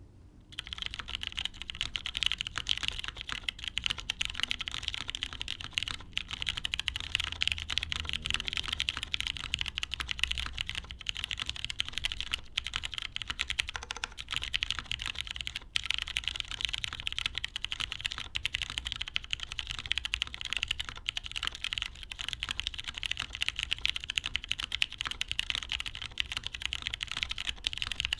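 Fast, continuous typing on a custom mechanical keyboard with lubed, filmed Cherry MX Brown tactile switches on an O-ring-mounted UHMWPE plate, capped with GMK keycaps. Dense key clicks with only a few brief pauses.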